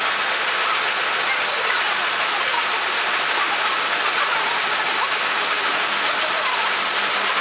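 Steady, loud hiss of printing and binding machinery running in a print works, an even noise with no distinct rhythm that drops away near the end.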